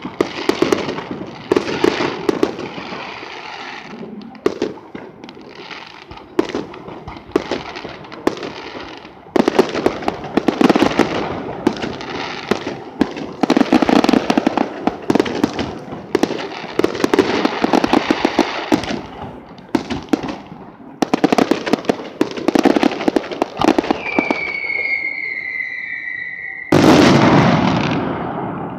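Aerial fireworks show: a continuous barrage of bangs and crackles that comes in waves. Near the end a whistle drops slightly in pitch for about two seconds, followed by one very loud boom that fades away.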